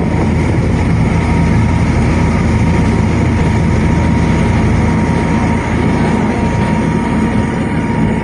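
Passenger ferry boat's engine running steadily under way: a low, even drone with a faint steady whine above it.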